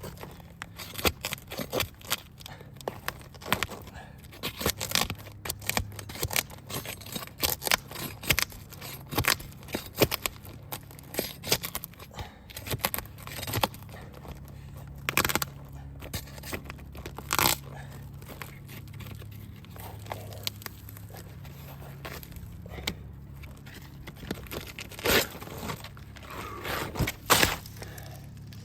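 Asphalt roof shingles being pried up and ripped loose, with irregular tearing, crackling and scraping throughout. The shingle tears apart rather than lifting cleanly because its mats are stuck to the layer beneath and to the underlayment.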